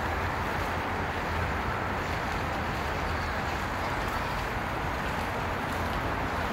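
Steady outdoor background noise: an even, unbroken rush with a low hum underneath and no distinct events.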